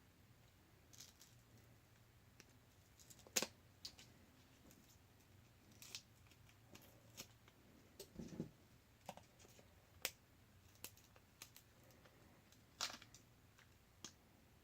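Faint scattered clicks and small cracking ticks as the shattered glass screen of a Samsung Galaxy S5 is pried up off the phone's frame, the sharpest snap about three and a half seconds in.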